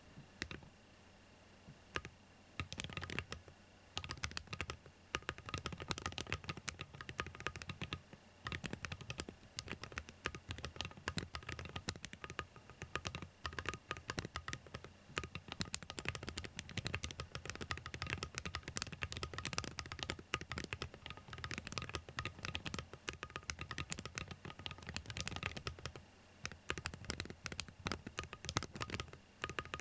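Fast typing on a Gravity45 mechanical keyboard fitted with Awekeys Wild Ice metal keycaps: a dense run of key clicks. It starts with a few single keystrokes, then turns into quick continuous typing, with brief pauses twice.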